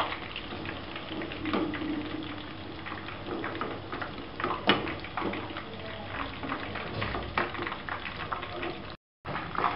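Chicken lollipops deep-frying in hot oil in a wok: steady bubbling and crackling, with a sharp click about four and a half seconds in. The sound breaks off for a moment near the end.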